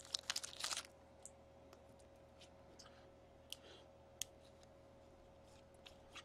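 Foil hockey-card pack wrapper crinkling as it is torn open, for about the first second, then a few faint clicks as the cards are slid out and handled.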